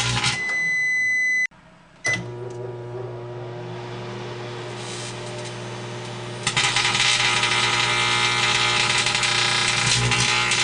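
Microwave oven: a long beep early on, a short break, a second short beep as it starts, then its steady running hum. About two-thirds of the way through, a loud, dense crackling buzz of electrical arcing inside the oven sets in over the hum.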